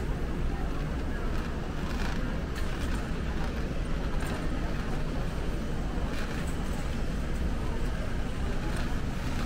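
Indoor ambience of a busy warehouse store: a steady low rumble under indistinct shoppers' chatter, with a few faint clicks and knocks.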